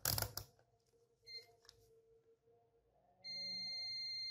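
Digital multimeter's continuity buzzer: a short chirp about a second in, then a steady high beep for about two seconds as the probes touch the power bank board. The beep shows the short across the capacitor bank is still there, not cleared by reheating the capacitors' solder.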